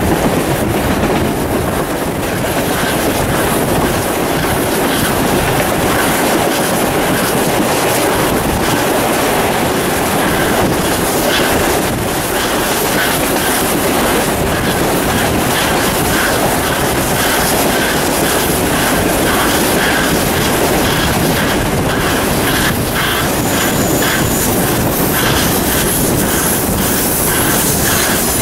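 Train hauled by steam locomotive 621 on the move: a steady loud rumble of running gear and wheels on rail. From about halfway through, wheels click regularly over rail joints, and thin wheel squeals come in near the end.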